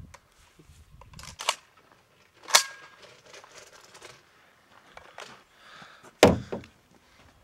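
A few sharp knocks and clicks, one about two and a half seconds in with a brief metallic ring. Then a loud thump about six seconds in as hearing-protection earmuffs are set down on the truck's metal hood right beside the microphone.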